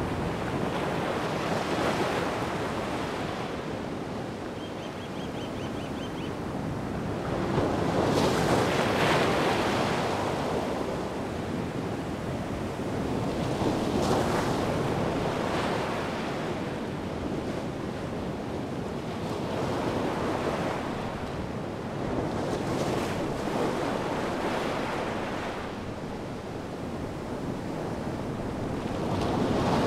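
Atlantic surf breaking on the shore, the wash swelling and easing in slow surges every several seconds.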